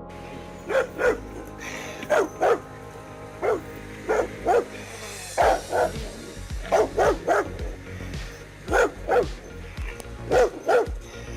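Rottweiler barking repeatedly, in short deep barks that come mostly in quick pairs, over steady background music.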